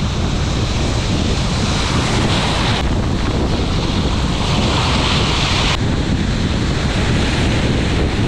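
Strong wind buffeting the microphone over shallow sea surf breaking and washing around a wader, the hiss of the surf swelling twice.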